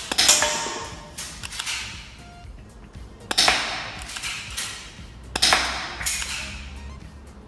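Background music with three sharp shots about two seconds apart from a KWC Beretta M92 spring airsoft pistol fired at cans.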